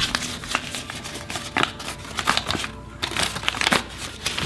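A crumpled sheet of paper being unfolded by hand, crinkling and rustling in an irregular run of sharp crackles.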